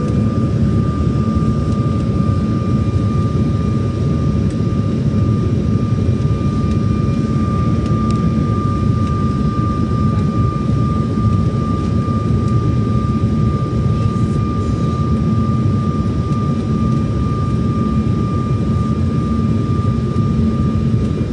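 Steady engine and airflow noise inside an airliner cabin in flight: a dense low rumble with a thin steady whine above it.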